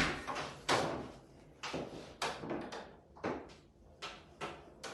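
A series of about eight sharp knocks or clunks, unevenly spaced, each dying away quickly, in a small room.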